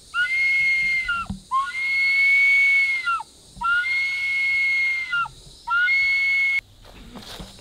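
Bamboo flute blown in four long, high held notes of about the same pitch, each ending in a quick downward droop, with short breaths between; the second note is the longest and loudest. It is played as an imitation of an animal's mating call.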